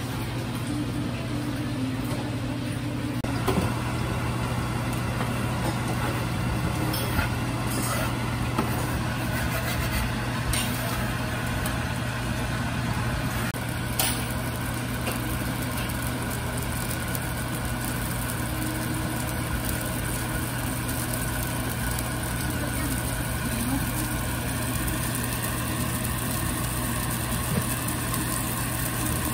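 Steady low machine hum of kitchen equipment at a flat-top griddle, with a few sharp clinks of metal utensils on the griddle in the first half.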